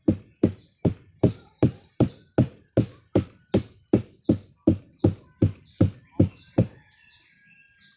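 Dull, evenly paced knocks, a little under three a second, as the flower stalk of a sugar palm is beaten by hand in its first round of beating, which stimulates sap flow before tapping. The knocks stop near the end, leaving birds chirping over a steady high insect whine.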